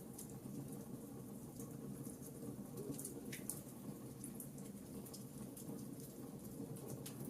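Fireplace fire crackling: a steady low rush of flames under scattered small, sharp crackles and snaps, with one louder pop a little over three seconds in.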